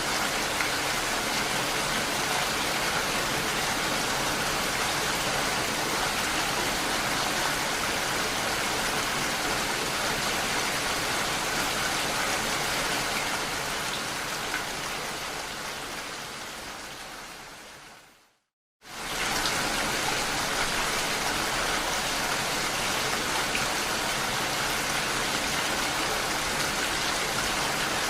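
Steady rain, drops striking window glass in a constant even hiss. About two-thirds of the way through it fades down to a moment of silence, then comes straight back in at full level.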